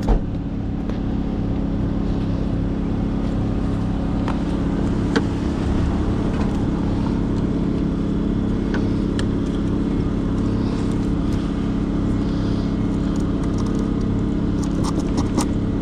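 An engine running steadily at one constant speed, a low even drone, with a few light clicks of small parts being handled.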